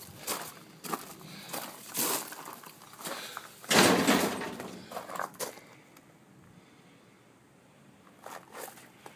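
Footsteps and handling noise from a handheld camera as its holder walks, with a louder rustling burst about four seconds in, then quieter with a few more scuffs near the end.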